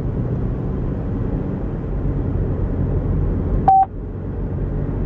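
Steady road and engine noise inside a moving car's cabin, with one short electronic beep a little under four seconds in.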